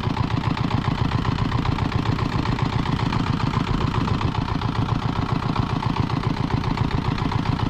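An engine idling steadily with a fast, even chugging beat.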